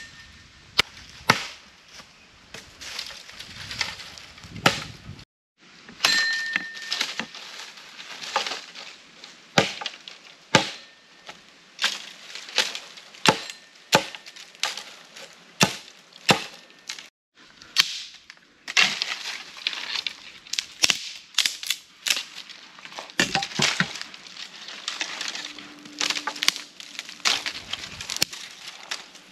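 Dry sticks and branches snapping and cracking as they are broken up, with rustling of twigs and dry leaves between the breaks. The cracks come irregularly, in many sharp snaps.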